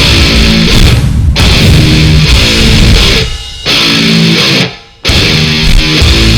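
Loud heavy rock music with distorted electric guitar, stopping for brief breaks between phrases about a second in, in the middle, and near the end.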